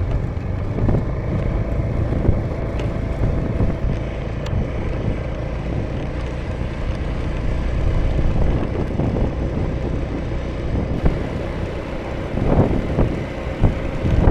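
Honda Vision scooter's small single-cylinder engine running steadily at cruising speed, with wind buffeting the action-camera microphone, gusting harder near the end.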